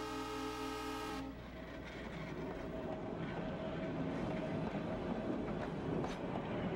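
Train horn sounding a sustained chord that cuts off about a second in, followed by the rumble of a train rolling on rails, growing louder, with a few sharp clicks of wheels over rail joints.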